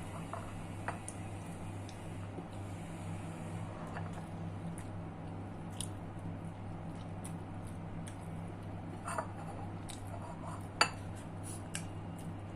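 Eating from a plate: scattered small clicks and clinks, with soft mouth sounds, a sharper clink about eleven seconds in. A steady low hum runs underneath.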